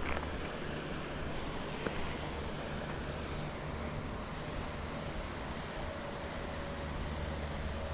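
Steady rush of a small creek waterfall, with an insect chirping in a regular high pulse about two to three times a second. There is a single faint tick about two seconds in.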